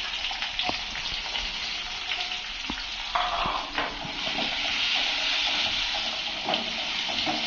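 Sliced onions sizzling in hot oil in a metal kadai, with a steady hiss. A metal slotted spoon stirs them, clicking and scraping against the pan now and then.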